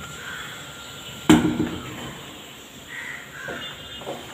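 A crow cawing outside: one loud, harsh caw about a second in, then fainter calls near the end.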